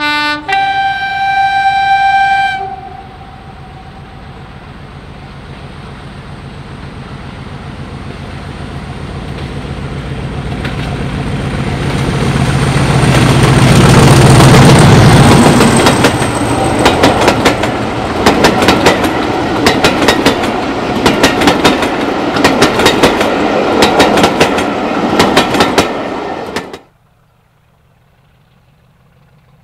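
A Class 50 diesel-electric locomotive sounds its horn, a short low note then a longer higher one. It passes close by with its English Electric 16-cylinder engine running, growing louder to a peak about halfway through. The carriage wheels then click over the rail joints in a fast steady rhythm until the sound cuts off abruptly near the end.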